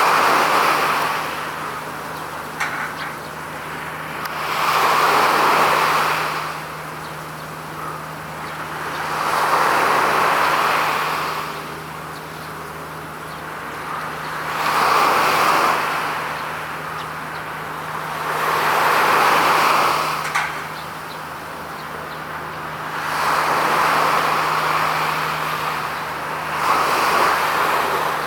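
Small waves washing in on the shore in a slow, even rhythm, one swell of wash about every five seconds, over a steady low hum.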